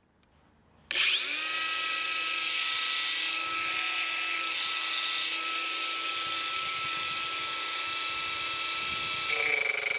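Bosch GWS 180-Li 18 V cordless angle grinder switched on about a second in. It spins up quickly to a steady high-pitched whine, and the tone shifts and grows a little louder near the end.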